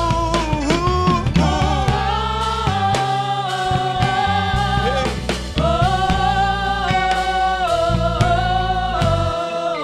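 Gospel choir singing a slow song in several-part harmony, holding long notes that move together from chord to chord, with a low instrumental accompaniment underneath.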